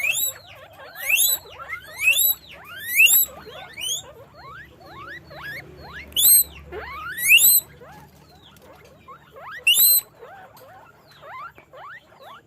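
Guinea pigs squeaking: loud, repeated high rising whistles, each sweeping up and falling back, coming in bursts with a short lull before the last loud call a little under ten seconds in.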